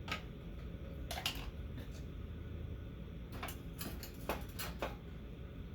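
Scattered light clicks and clinks of tools and metal parts being handled over a steady low hum, a few of them coming in quick pairs.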